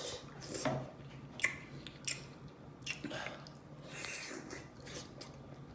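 A person eating seafood in sauce: close-up wet chewing and lip-smacking, with sharp smacks at irregular intervals about once a second.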